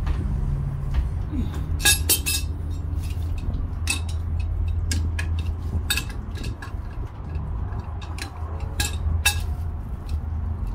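Steel wrenches clinking and knocking against a Jeep tie rod and tie rod end as the parts are gripped and turned: scattered sharp metallic clinks, a quick cluster about two seconds in, over a steady low hum.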